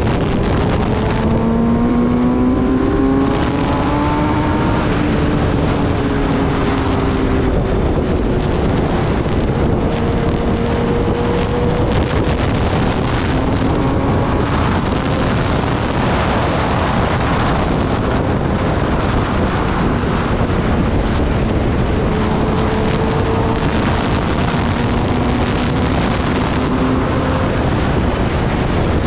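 Kawasaki ZX-10R's inline-four engine pulling at road speed, its note rising over the first few seconds as the bike accelerates, then holding steadier with small rises and falls. Heavy wind rushes over the microphone the whole time.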